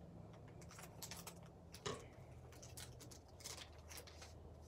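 Foil trading-card booster pack being snipped open with scissors and handled: faint, scattered crinkles and clicks, with one sharper click about two seconds in.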